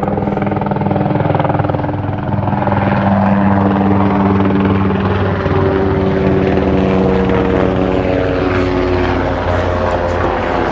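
Helicopter flying over, loud, its rotor beating steadily, the pitch sagging slightly in the second half as it moves on. Those watching take it for an air ambulance.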